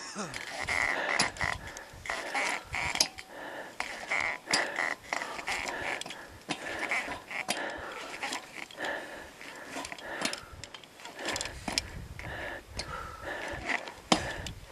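Crampon points clanking and scraping on aluminium ladder rungs as climbers step across a crevasse, an irregular run of sharp metallic clicks and scrapes.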